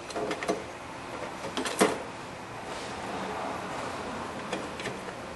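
Handling of tools under a truck's hood: a few light clicks and knocks as a work light and test-probe leads are moved about, the loudest just under two seconds in, then only steady background hiss.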